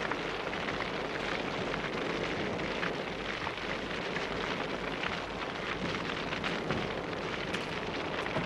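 A large fire burning, a steady rushing noise dotted with frequent sharp crackles.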